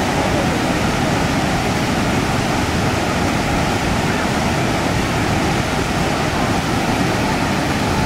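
Hogenakkal Falls, a large waterfall, gushing into a rocky gorge: a steady, even rush of falling water.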